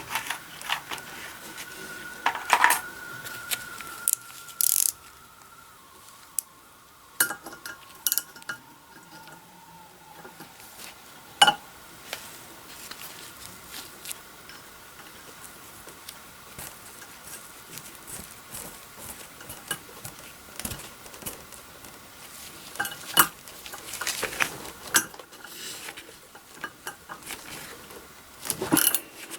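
Metal hand tools and small steel parts clinking and tapping on a Honda CB400 cylinder head while the exhaust-port stud bolts are worked out with M6 nuts. The sharp clinks come irregularly, and a few louder strikes leave a short metallic ring.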